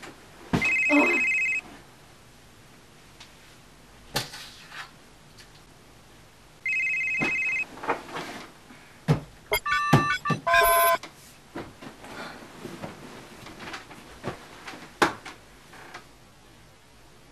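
Electronic phone alarm beeping: a loud, steady high beep about a second long, repeated about six seconds later, then a quick run of short beeps at changing pitches around ten seconds in. Knocks and rustling of bedding between the beeps.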